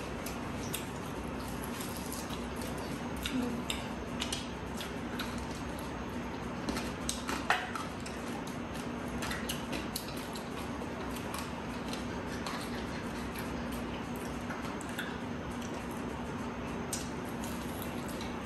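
People eating fried food off plates: scattered small clicks and clinks of plates and eating, the sharpest about seven and a half seconds in, over a steady low hum.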